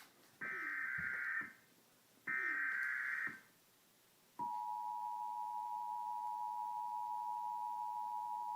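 Emergency Alert System header: two digital SAME data bursts of about a second each, a harsh buzzing warble. About a second later comes the EAS two-tone attention signal, a steady dual tone (853 and 960 Hz) that starts and holds.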